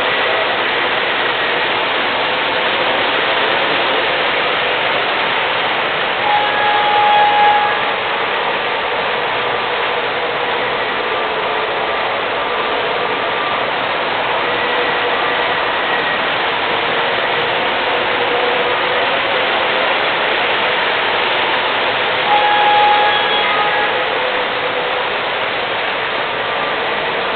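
MTH O-gauge model subway trains running on the layout's three-rail track: a steady rolling rumble of wheels and motors on the rails. A short pitched tone sounds twice, some fifteen seconds apart.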